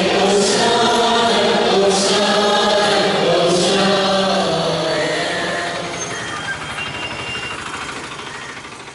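Choir singing a chant-like church hymn, which fades out gradually over the second half.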